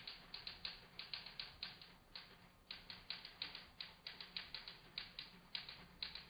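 Typewriter keys struck in a quick, uneven clatter of clicks, about four or five a second, with a short pause a little over two seconds in.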